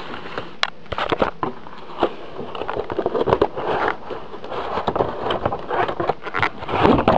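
Cardboard box and packaging being handled and pulled open: irregular scraping, crackling and sharp clicks as the capture card is taken out of its box.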